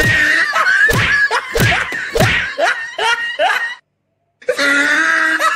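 Comic sound track of blows: three heavy slaps or thumps between about one and two and a half seconds in, among voices crying out over music. It cuts out completely for about half a second near four seconds, then starts again.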